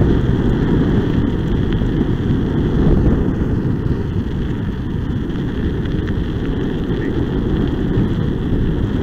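Steady wind noise on the microphone over the low rumble of a kickbike's wheels rolling on asphalt while it moves along.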